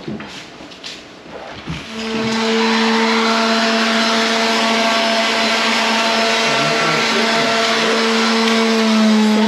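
A few light knocks and taps, then about two seconds in an electric motor starts up and runs steadily, a loud even hum-and-whine that holds one pitch.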